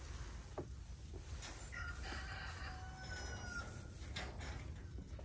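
A rooster crowing once, a single drawn-out call of about two seconds starting nearly two seconds in, over a steady low rumble.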